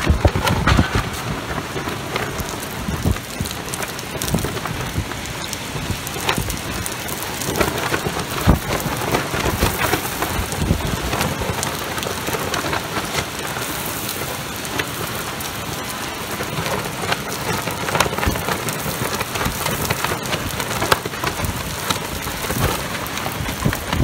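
Extremely heavy rain pouring down in a summer thunderstorm: a dense, steady hiss made of countless drops striking surfaces. Strong wind gusts buffet the microphone for about the first second.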